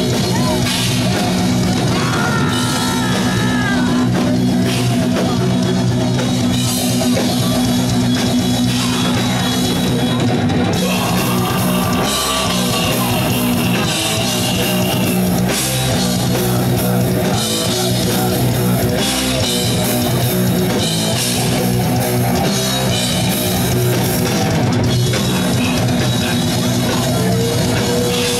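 Heavy metal band playing live: distorted electric guitar and a pounding drum kit at a loud, steady level without a break.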